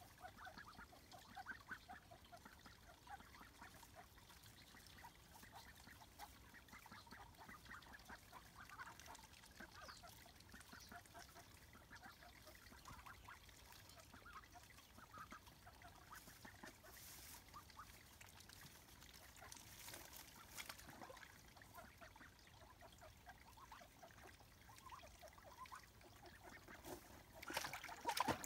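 Young Swedish Yellow ducks giving soft, repeated short calls, faint and almost continuous. Near the end there is a brief, louder rush of noise.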